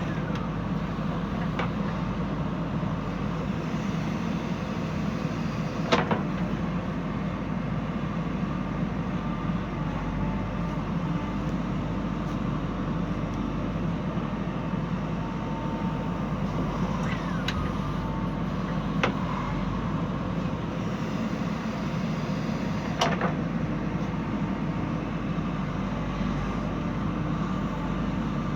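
Backhoe loader's diesel engine running steadily under load, with a handful of sharp knocks, the loudest about six seconds in and again near the end.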